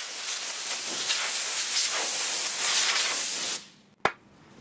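Can of compressed air spraying through its straw nozzle into an opened MacBook Air's insides to blow out dust: one continuous hiss lasting about three and a half seconds that cuts off suddenly. A sharp click follows soon after.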